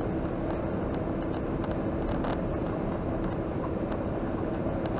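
Steady engine and road noise inside a semi truck's cab as it cruises down the highway, with a constant hum running under it.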